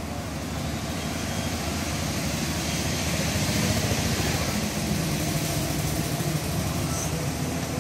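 Mahindra 275 TU tractor's three-cylinder diesel engine idling steadily, a little louder from about three seconds in.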